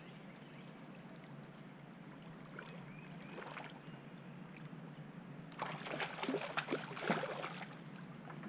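A hooked fish splashing and thrashing at the water's surface as it is reeled in toward the boat: a short bout about three seconds in, then a louder, longer bout of splashes for about two seconds past the middle.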